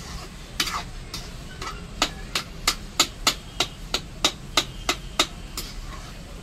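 Metal spatula knocking and scraping against a metal kadhai while mashed boiled potatoes are stirred in sugar syrup. A few scattered clacks at first, then a steady run of sharp knocks, about three a second, through the middle.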